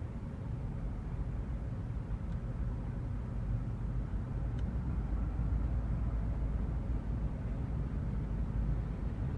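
Low rumble of road traffic, a motor vehicle passing on a nearby street, growing louder over the first half and then holding steady.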